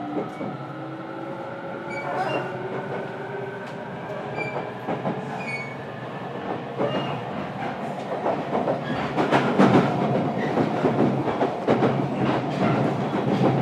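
Interior running sound of a JR Kyushu 817 series electric train in its motor car: the traction motor whine rises steadily in pitch as the train picks up speed. From about nine seconds in the running gets louder, with quick clatter of the wheels over the rails.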